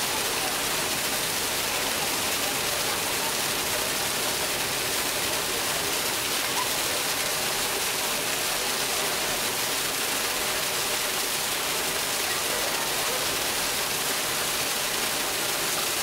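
Artificial waterfall: a column of water falling into a pool, splashing with a steady, even hiss.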